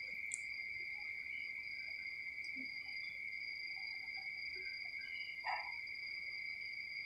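Faint, steady high-pitched trilling at two pitches, as of crickets, continuing without a break.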